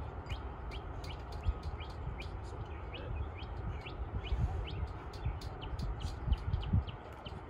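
A bird chirping over and over, short high chirps a few times a second, over a steady low rumble.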